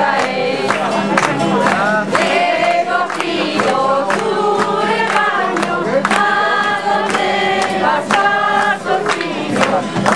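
A group of children and adults singing a song together, accompanied by a strummed acoustic guitar, with hands clapping along on the beat.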